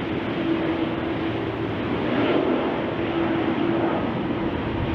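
Jet engine noise from a Boeing 777-300's twin GE90 engines as the airliner rolls out along the runway after touchdown: a steady rushing sound with a low hum underneath.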